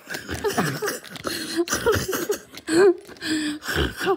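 A child's voice making wordless eating noises for a toy, a string of short munching grunts and "nom" sounds.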